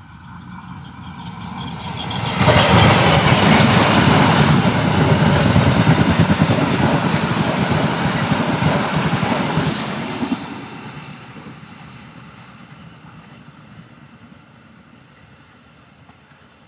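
Diesel-hauled parcel train of boxcar vans passing close by: a rising rumble, then a sudden jump in loudness about two and a half seconds in as the train draws level, with wheels rattling over the rails for about eight seconds, before it fades steadily away.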